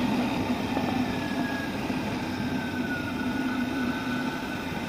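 Motorcycle engine running steadily while riding, with a faint whine that slowly falls in pitch.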